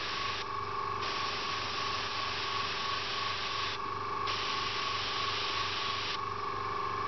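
Neo for Iwata airbrush spraying paint onto paper, its air hiss stopping briefly twice and growing weaker near the end. A steady hum runs underneath.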